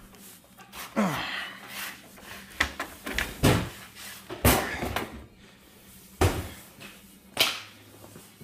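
A series of sharp knocks and clunks, about seven in all, as snowmobile parts and tools are handled and set down on a garage floor.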